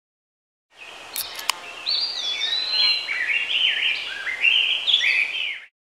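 Birdsong: a run of quick chirping, sliding whistled notes that begins after a short silence, with two sharp clicks about a second in, and cuts off abruptly near the end.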